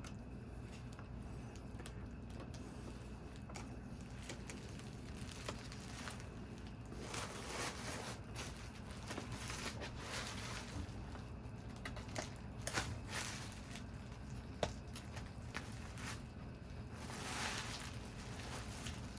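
Quiet handling noise from prying a touchscreen digitizer panel off an LCD monitor: stretches of faint scraping and rubbing, with scattered small clicks as plastic side tabs let go.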